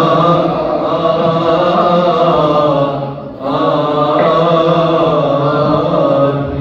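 A man's voice chanting a liturgical hymn through a microphone, in long held, slowly moving notes, with a short break for breath about halfway through.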